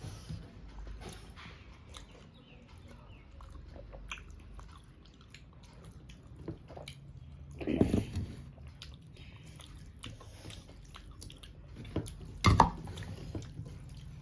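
Close-up eating sounds: a person chewing a mouthful of rice and rohu fish curry, with small wet clicks and smacks. Two louder bumps come about eight and twelve and a half seconds in.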